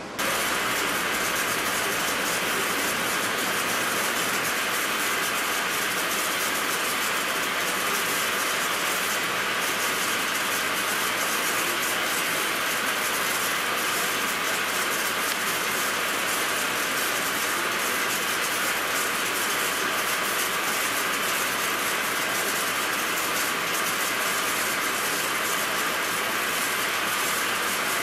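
Engine lathe running and turning an eccentric diameter on a weld-repaired steel shaft, the cutting tool taking a cut against the offset surface. A steady, even mechanical noise with a hiss of cutting.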